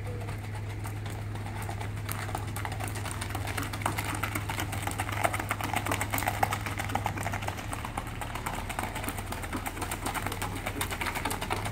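Hoofbeats of a Mangalarga Marchador stallion in the marcha picada gait on packed dirt: a quick, irregular run of light clicks over a steady low hum.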